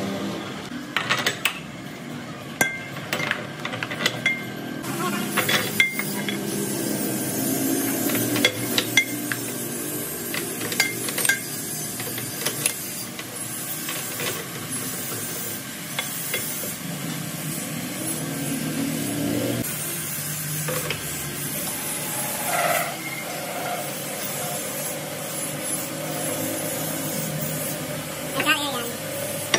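Metal clinks and knocks as a brake drum and the lathe's centering cones and spacers are handled and fitted onto a brake lathe arbor, over a steady workshop hum. The clinks are thickest in the first half.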